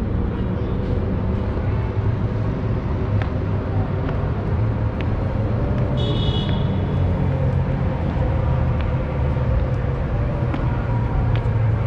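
City street traffic: a steady low rumble of cars running past, with a brief high-pitched squeal about six seconds in.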